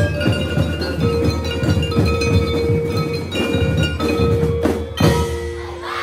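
School drum and lyre corps playing: marching drums beating fast under bell lyres ringing out the melody, ending on a loud final hit about five seconds in.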